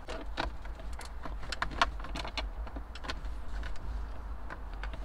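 Irregular light clicks and rattles of a wire and its plug being worked through the plastic dashboard, busiest in the first three seconds, over a steady low hum.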